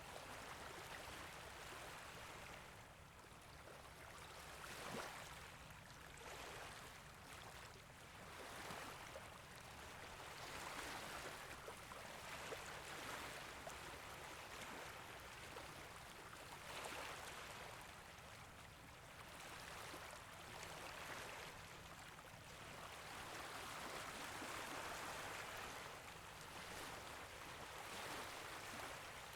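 Small waves lapping gently at a beach: a soft wash of water that swells and fades every few seconds, with light splashes.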